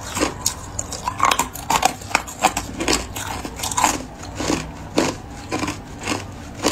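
Clear hard ice cubes being bitten and chewed up close: a string of sharp, irregular crunches, about two or three a second.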